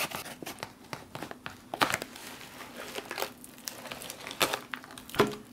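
The thick brown plastic outer bag of an old MRE crinkling and rustling as it is pulled open and the ration's contents slide out, in irregular crackling bursts, sharpest about two seconds in and near the end.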